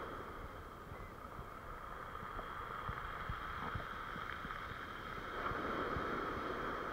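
Small waves breaking and washing up a pebble beach, the surf dipping about a second in and swelling again toward the end.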